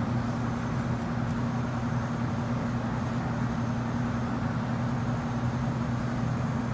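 Steady low hum with two droning tones, the constant air-handling and machinery noise of an indoor shooting range.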